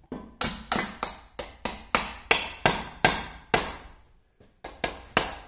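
Hammer tapping the diff lock assembly into place in a Massey Ferguson 165's rear axle housing: a quick run of sharp metal-on-metal strikes, about three a second, then a short pause and a few more near the end.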